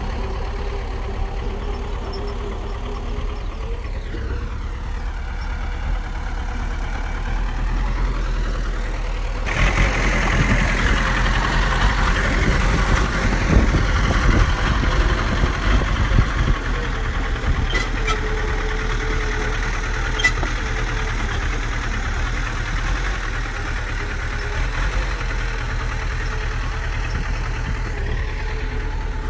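Bulldozer's heavy diesel engine running steadily. Its pitch dips and climbs again a few seconds in, then it grows louder and rougher from about ten seconds in for several seconds, as if under load, before settling back.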